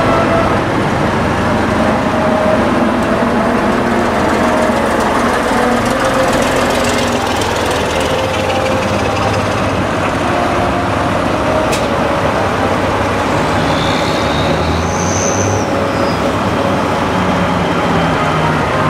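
Big Schlüter tractor diesel engines working hard under load as they pull disc harrows through the soil: a loud, steady, dense engine noise.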